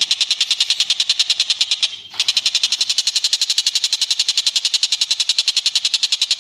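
Songbird giving a fast, high trill of evenly repeated notes, about a dozen a second, with a brief break about two seconds in: masteran song used to train cage birds.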